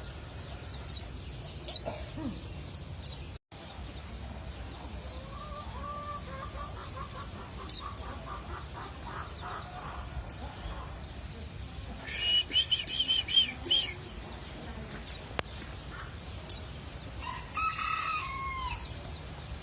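White-eye (pleci) giving short, high, downward-slurred chirps again and again, with a rapid high trill about twelve seconds in. Chickens cluck in the background, in a run of calls from about six seconds in and again near the end, over a steady low hum.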